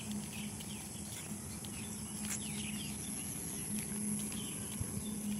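Rural outdoor ambience: a steady high-pitched insect drone with faint, scattered bird chirps and a faint low steady hum underneath.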